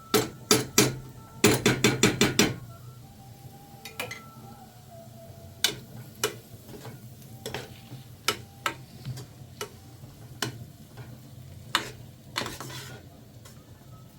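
Metal kitchen utensils clattering against cookware: a few sharp knocks, then a quick run of about eight, then scattered single knocks.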